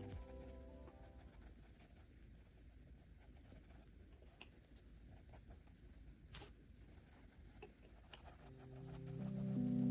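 Ohuhu alcohol marker tip stroking softly across coloring-book paper, a faint scratchy rubbing with small ticks and one sharper click about six seconds in. Soft background music fades back in near the end.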